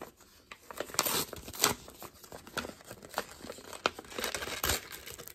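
A small paper envelope being handled and opened: irregular crinkling and rustling of paper, with a few sharper crackles.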